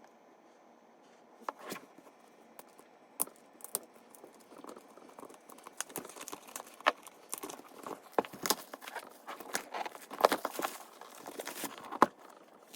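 Keyboard packaging being handled and opened: rustling and crinkling with scattered sharp clicks and knocks. It is sparse for the first few seconds and gets busier from about six seconds in.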